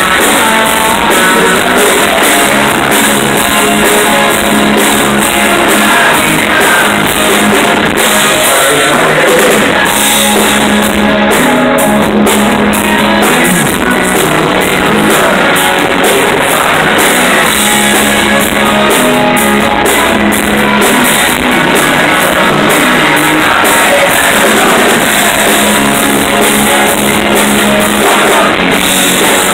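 A loud rock band playing live, with electric guitar and a drum kit.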